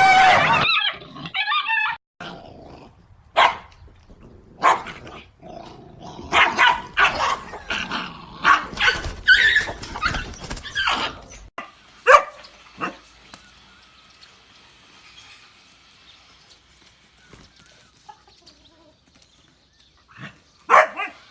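Dog barking in many short bursts through the first half, then only a few scattered barks after a quieter stretch.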